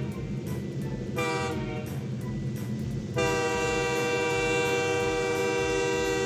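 Cartoon toy train sound effect: a steady rhythmic chugging, with the train horn sounding briefly about a second in and then held from about three seconds in.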